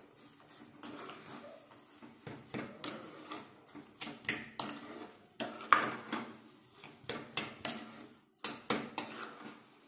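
Yellow plastic spatula scraping and knocking against a non-stick kadhai while stirring thick semolina halwa, in irregular strokes.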